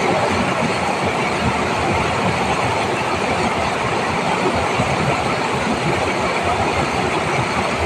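River water rushing steadily over a low rock ledge in white water, a loud and even noise.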